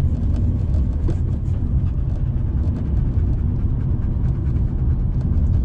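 Steady low rumble of a car driving along a city street, heard inside the cabin: engine and tyre noise, with faint light ticks through the middle.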